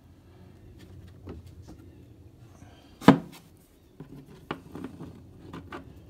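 Hands working the steel dust collection hood of a Grizzly G0458Z drum sander. There is light rattling, then one loud knock about three seconds in. After that comes a run of small clicks and taps as a hand turns the hood's fastening knob.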